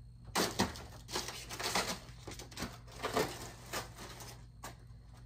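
Clear plastic packaging bag crinkling and rustling in short, uneven crackles as it is handled and pulled out of a box.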